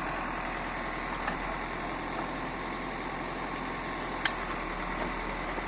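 Engine of a heavy construction machine running steadily at a low idle, with one sharp click about four seconds in.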